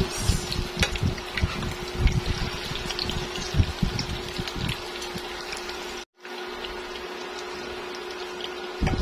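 Dulong-and-egg fritters shallow-frying in canola oil in a nonstick pan: steady sizzling with many small crackles. Low knocks from a spoon and fork working the patties in the pan during the first few seconds; after a short break about six seconds in, the sizzling goes on alone.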